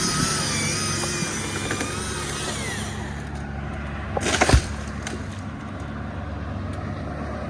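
An engine running steadily at a low idle, with one sharp knock about four and a half seconds in.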